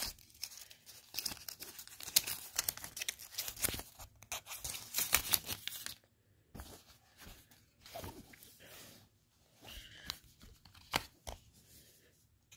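Protective wrapping torn and peeled off a Galaxy Buds Pro earbud charging case, crinkling and tearing for about the first six seconds, then quieter handling with a few soft knocks.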